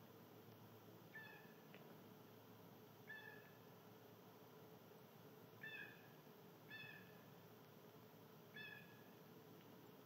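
Five short, clear, pitched animal calls spaced a second or two apart, over a faint steady hiss.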